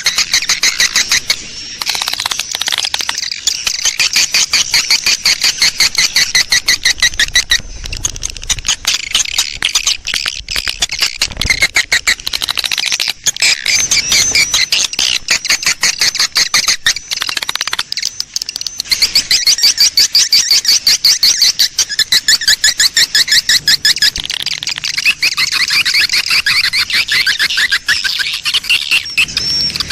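Edible-nest swiftlet colony twittering: a dense, rapid stream of short high chirps. It is the colony mating call played as a lure to draw swiftlets into a swiftlet house.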